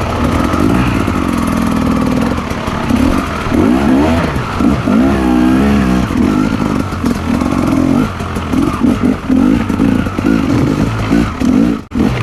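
Off-road motorcycle engine running as it rides the trail, its pitch rising and falling repeatedly with the throttle. There is a brief drop in sound near the end.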